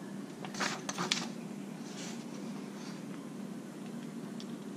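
A sheet of printer paper being laid down and handled on a table, with a brief rustle of paper about a second in. After that the room is quiet apart from a faint steady low hum.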